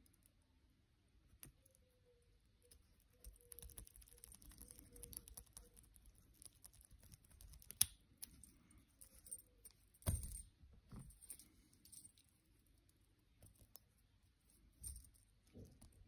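Faint metallic clicks and scrapes of a thin pick and tension tool working in the keyway of a small brass padlock, with the keys hanging from it jingling. A sharper click comes about eight seconds in and a louder knock about ten seconds in.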